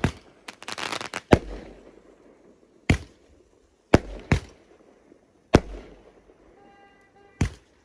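Fireworks going off: a string of about seven sharp bangs, roughly a second apart, with a burst of crackling in the first second.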